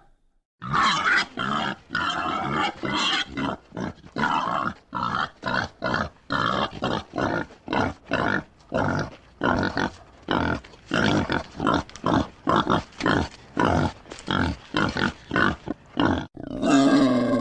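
Wild boar grunting in a long series of short, rapid grunts, about two a second, which stop abruptly near the end.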